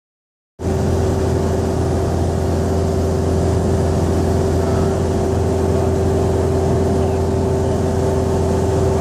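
Steady drone of a Grumman light aircraft's piston engine and propeller in flight, heard inside the cabin: a strong low hum with a steady higher tone over it and a hiss of rushing air. It starts suddenly about half a second in and then holds even.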